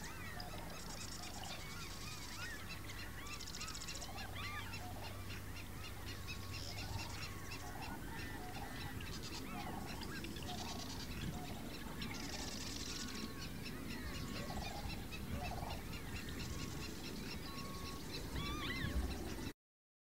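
Barn swallow song: a long run of fast twittering broken by repeated buzzy, grating rattles, with lower honking calls underneath and a steady low hum. It cuts off suddenly near the end.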